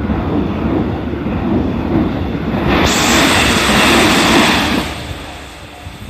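JR Central 313 series electric train passing close by, its wheels rumbling over the rails. About three seconds in a loud rushing hiss sets in suddenly and lasts about two seconds, then the sound dies away as the train moves off.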